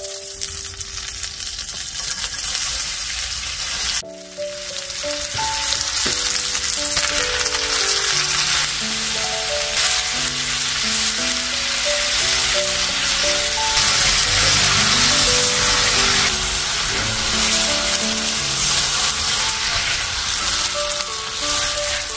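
Butter sizzling in a hot pan, then, after a brief break about four seconds in, sliced onions frying with a louder, steady sizzle as they are stirred. A light background melody plays throughout.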